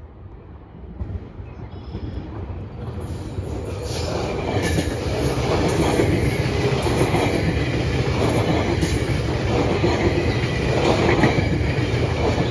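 GO Transit bilevel commuter train rolling past, its rumble growing over the first few seconds and then holding steady. Its wheels clack repeatedly over the rail joints and track switch as it crosses over.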